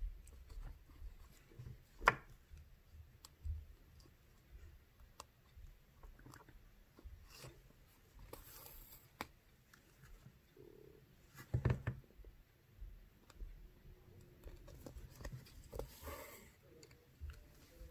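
Faint handling sounds of hand bead embroidery: small clicks and taps of glass beads and needle, fingers working the felt backing, a sharper click about two seconds in and a cluster of knocks past the middle. Twice a brief rasp as the thread is drawn through the fabric.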